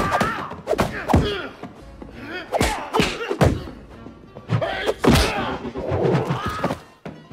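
Film fight sound effects: a quick string of punch and kick impacts, thuds and whacks landing every half second or so, over background music.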